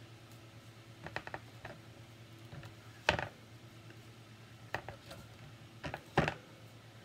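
Short sharp knocks and clatters as a round painted board is handled on a metal wire rack. The knocks come singly and in small groups, the loudest about three seconds in and two more near the end.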